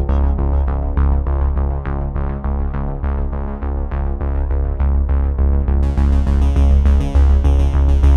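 Background electronic music: synthesizer over a steady beat, its high end filtered away until about six seconds in, when it comes back.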